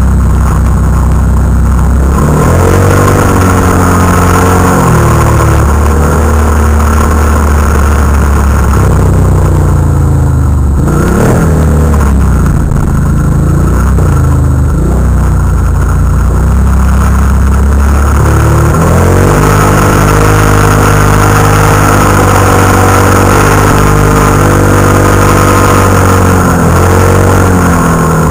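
Can-Am Renegade ATV engine running hard at speed over sand dunes. The revs rise and fall, dip and pick up again about eleven seconds in, then climb and hold higher for the rest.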